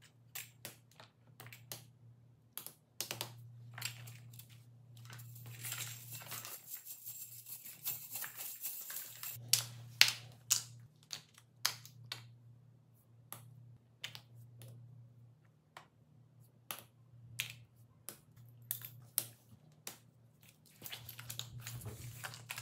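Silicone and plastic fidget toys being picked up and set down on a foam board: scattered sharp taps and clicks at an uneven pace, with a stretch of rustling and sliding midway. A low steady hum runs underneath.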